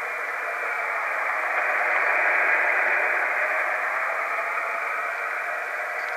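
Steady receiver hiss from a Yaesu FT-847 transceiver's speaker, tuned to the VO-52 satellite's SSB downlink with no station coming through, the noise held to a narrow band by the SSB filter. It swells a little in the middle and cuts off abruptly at the end.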